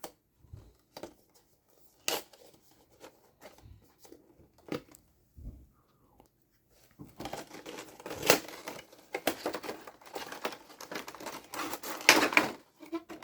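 Plastic wrapping being pulled off and crumpled: scattered light crackles and clicks at first, then from about halfway on a dense run of crinkling and tearing.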